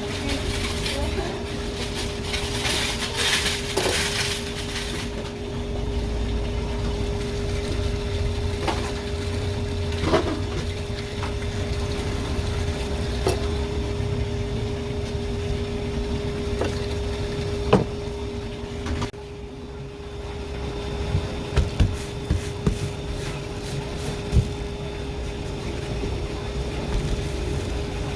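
Knife clicks, taps and scrapes on a cutting board while a large sea bass is filleted, over a steady machine hum; a handful of sharper knocks come in the second half.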